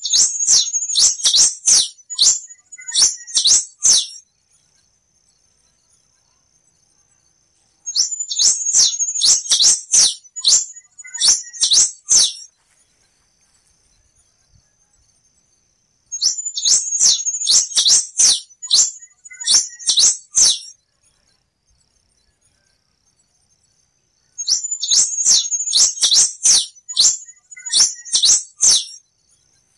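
Black-and-rufous warbling finch (quem-te-vestiu) singing four song bouts, about eight seconds apart. Each bout is a rapid series of high, sharp notes lasting four to five seconds.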